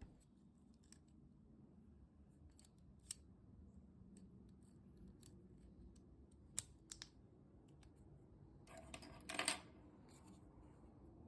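Faint, scattered small clicks of a plastic key fob and its coin battery being handled, with a short burst of scraping clicks about nine seconds in.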